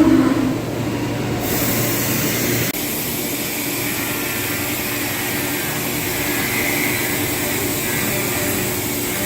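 CNC machine running steady machining noise, like a spindle cutting with coolant, whose character changes abruptly about a second and a half in and again near three seconds.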